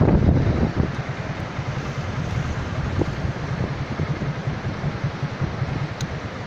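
Floodwater rushing over and through a low, nearly submerged bridge, a steady roar of water mixed with wind buffeting the microphone.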